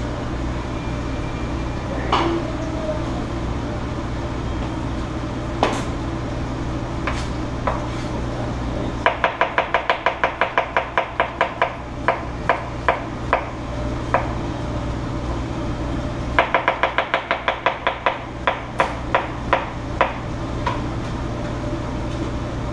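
Chef's knife chopping vegetables on a cutting board: two runs of quick strokes, about six a second, each slowing into spaced single cuts, with a few lone knocks before them. A steady low kitchen exhaust-hood hum runs underneath.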